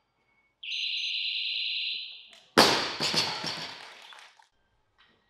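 A competition down-signal buzzer sounds one steady high tone for about a second and a half, telling the lifter to lower the bar. Then the loaded barbell is dropped from overhead and its bumper plates crash onto the wooden lifting platform, bouncing a few times as it settles.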